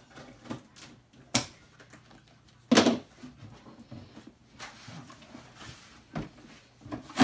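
Large cardboard box being opened by hand: the flaps are pulled back and rustle, with four sharp knocks or rips, the loudest nearly three seconds in.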